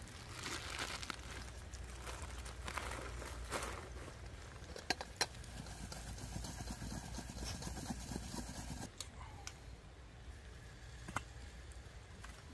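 Campfire coals crackling and sizzling under the grill, with a few sharp metal clicks of cookware and utensils, twice about five seconds in and once near the end, over a low rumble that drops away about nine seconds in.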